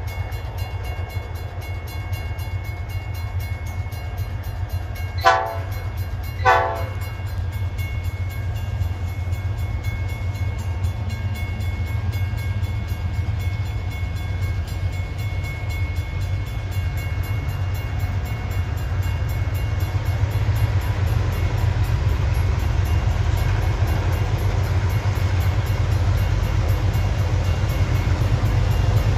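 Diesel locomotive of an approaching ballast train, its engine a steady low rumble that slowly grows louder as it nears. About five seconds in, two short horn blasts about a second apart.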